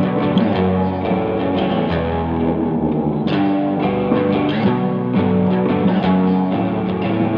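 Background music led by guitar, with a steady rhythmic beat.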